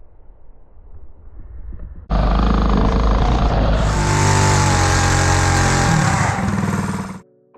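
Mini bike's small single-cylinder Predator 212 engine running hard at high revs. It cuts in suddenly about two seconds in, its pitch shifts as the revs change, and it stops abruptly near the end.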